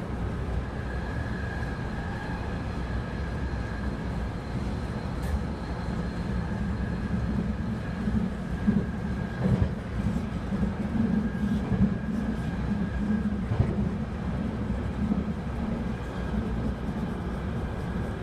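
Subway train car in motion: a steady low rumble with a thin, steady high whine over it, and a few short knocks in the second half.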